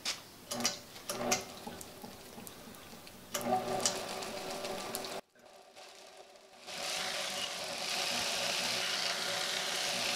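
Homemade belt grinder driven by a bench-grinder motor: a few handling clicks, then the motor and belt running with a steady whir. The sound cuts off abruptly about five seconds in, and after a short near-silence it starts again and climbs to a steady running whir. The belt is jumping around on its wheels, which the builder puts partly down to the belt tension being too loose.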